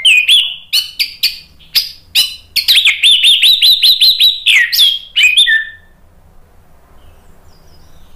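Orange-headed thrush singing loudly: quick, varied whistled notes with a fast run of repeated rising notes in the middle, falling silent about six seconds in.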